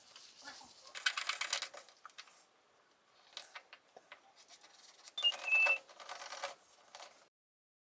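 A small carved wooden ring rubbed by hand with sandpaper, in short scratchy bursts with fainter scratching between them and a brief squeak. The sound cuts off abruptly about seven seconds in.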